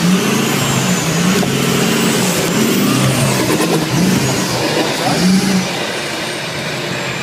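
A 4x4 ute's engine revving hard under load as it claws up a steep dirt bank, the pitch rising and falling several times.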